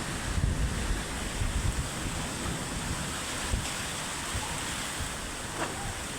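Steady roar of an approaching heavy rainstorm: rain and wind, with gusts buffeting the microphone in the first couple of seconds.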